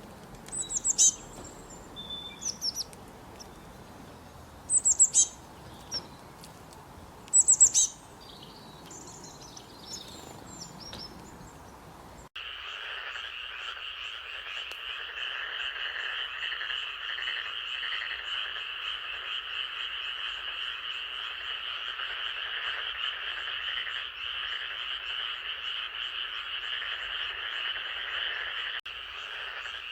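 A few short, high bird chirps over a low hiss. About twelve seconds in, a sudden cut brings in a dense, steady chorus of many croaking frogs.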